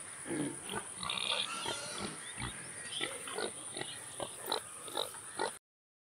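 Pig grunting in a string of short grunts, which cut off suddenly about five and a half seconds in.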